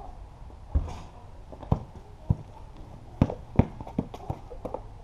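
Irregular sharp thumps of a basketball and sneakers striking a concrete patio during a one-on-one game, about eight in all.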